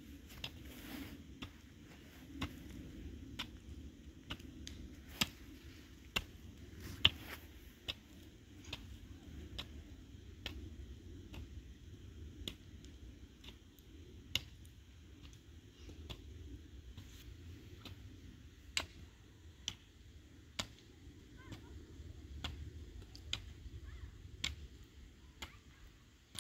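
A series of sharp, irregular clicks or light taps, roughly one a second, over a low steady rumble.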